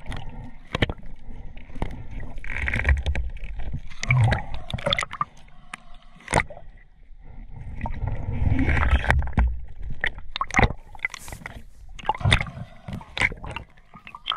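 Muffled underwater sound from a camera in the water: water gurgling and rushing with low rumbles, and many sharp clicks and knocks from hands working a speargun's bands and line.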